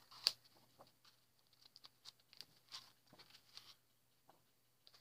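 Faint rustling and soft flicks of the sheets of an 8x8 patterned paper pad being leafed through by hand, dying away after about three and a half seconds.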